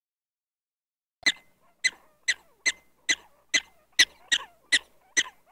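Black-tailed prairie dog giving a steady series of short, sharp, high-pitched barks, about two or three a second, starting about a second in: the prairie dog's repeated alarm call.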